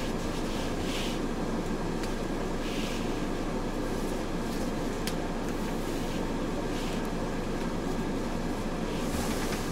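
Steady mechanical drone with a few brief hissing sounds and a single sharp click about five seconds in.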